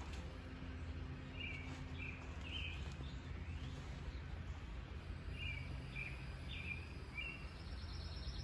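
A bird calling in short chirps, in small groups every second or so, over a steady low rumble; near the end a higher, rapid trill starts.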